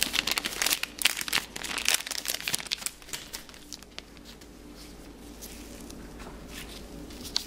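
Thin plastic crinkling as it is handled: dense crackling rustles for about the first three seconds, then only faint occasional rustles.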